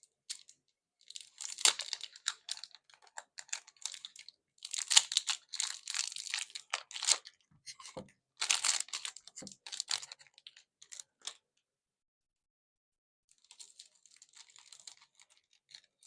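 Packaging being torn open and crinkled by hand: irregular rustling and ripping of thin plastic or foil wrapping, with a few brief taps. It pauses about three quarters of the way through, then resumes more softly.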